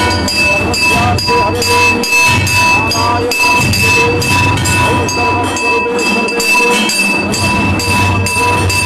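Temple bells and metal gongs struck in a fast, steady rhythm, several strikes a second, over a continuous ringing tone.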